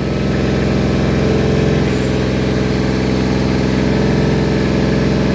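Backhoe's diesel engine running steadily, getting a little louder over the first second. A faint high whine comes in for about a second and a half, about two seconds in.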